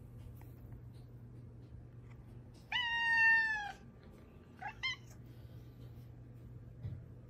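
Domestic tabby cat meowing: one long meow about three seconds in, trailing down in pitch at its end, then two short rising meows about a second later.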